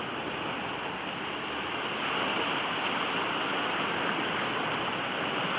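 Steady rushing of sea surf washing over a rocky shore, an even, unbroken wash.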